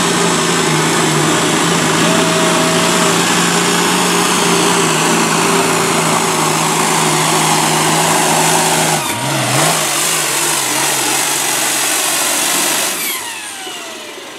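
John Deere pulling tractor's diesel engine running at full throttle under load as it drags the pulling sled. The revs dip and waver briefly about nine seconds in. Near the end the engine note drops away and a falling whine winds down.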